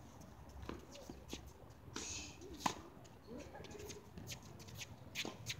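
Tennis rackets striking the ball in a rally: a few sharp pops one to two seconds apart, the loudest about halfway through.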